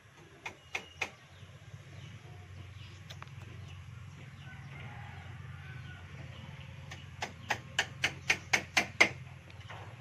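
Hammer striking bamboo slats on a coco lumber cage frame: three blows about half a second in, then a quick run of about eight blows near the end, roughly four a second and growing louder.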